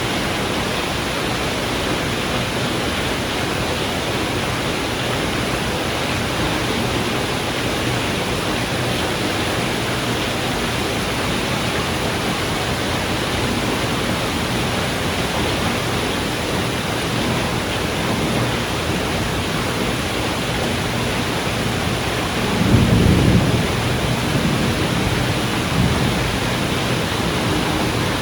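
Steady rain during a thunderstorm. A low roll of thunder swells up about 22 seconds in, followed by a smaller rumble a few seconds later.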